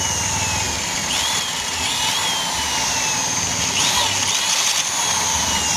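Electric drill with an 8 mm bit running steadily as it bores out the stripped threads of a bolt hole in a motorcycle's cast aluminium cylinder head, ready for a thread insert.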